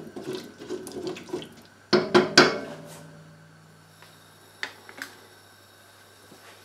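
A wooden spoon stirring diced potatoes in a shallow layer of stock in a stainless steel pot: soft wet scraping and sloshing. About two seconds in come three quick, sharp knocks, then two faint clicks a little later.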